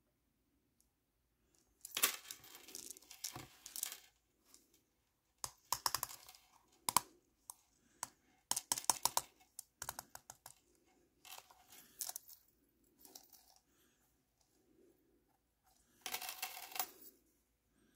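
Handling noise from a Fluidmaster toilet flapper: its small metal link chain clinks and rattles and gloved fingers rub on the flapper, in irregular bursts of light clicking with short quiet gaps between.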